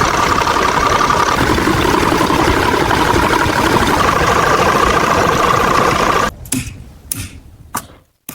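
Car engine running steadily, then cut off about six seconds in, followed by a few short sharp clicks.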